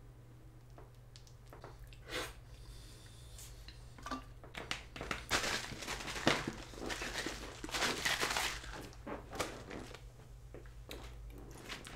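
Drink sloshing in a plastic bottle that is shaken hard by hand with a palm over the open top, with the plastic crinkling and knocking. A few knocks come first, then the rapid, irregular shaking goes on from about four seconds in until near the end.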